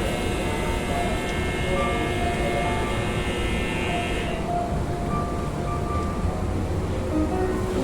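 Background music with scattered sustained notes over a steady low rumble. A high, many-toned whine starts abruptly and cuts off about four seconds in.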